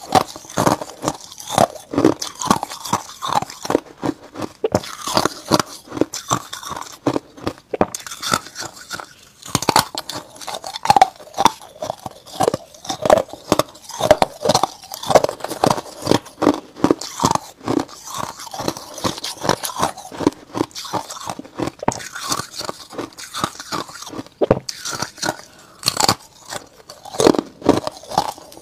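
Ice being bitten and chewed: a fast, continuous run of sharp crunches as frost-coated ice discs break up between the teeth.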